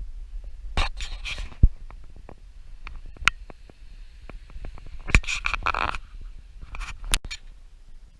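Rustling and scraping handling noise on the microphone over a steady low rumble, with scattered sharp clicks and knocks and three longer rustling bursts, about a second in, around five seconds and just before the end.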